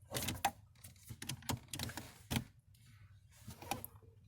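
Irregular clicks and light knocks from hands working the seat-belt tensioner's cable and connector under a car seat.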